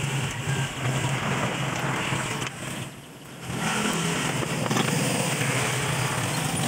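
A steady mechanical drone, dropping away briefly about three seconds in.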